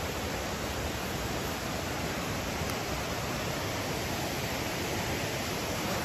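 River water rushing over rocky rapids: a steady, even rush.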